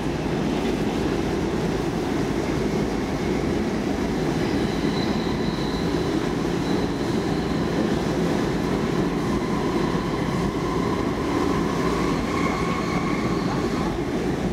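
Stockholm Metro C14 train running at speed, heard from inside the passenger car: a steady rumble of wheels on the rails. Faint high squealing tones rise and fade now and then.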